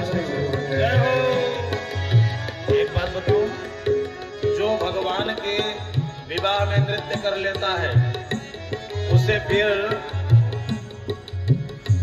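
Live devotional bhajan music: tabla drumming in a steady rhythm under a melody line.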